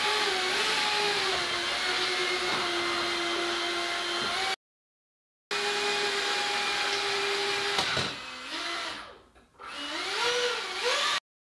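Two small electric ducted fans on a tiny 3D-printed RC hovercraft, whining at a steady pitch that shifts up and down with the throttle. The sound breaks off for about a second twice, and shortly before the end the fans spool down almost to nothing, then spin back up in rising whines.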